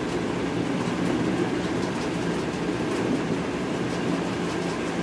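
Steady low background hum and rumble, even in level throughout, with faint light ticks now and then.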